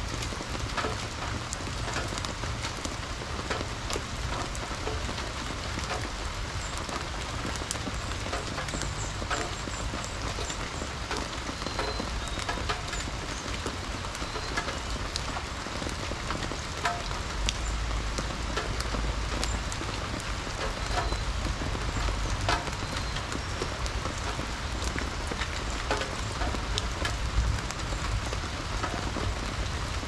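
Steady rain falling, with the ticks of single drops landing close by. A low rumble runs underneath and swells in the second half.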